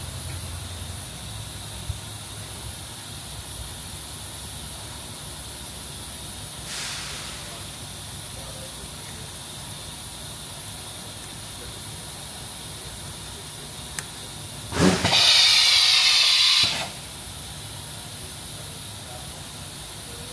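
Milltronics RH20 CNC vertical mill running a program in auto with a steady low hum; a brief faint hiss comes about a third of the way in, and about three-quarters of the way through a click is followed by a loud burst of hissing air lasting nearly two seconds.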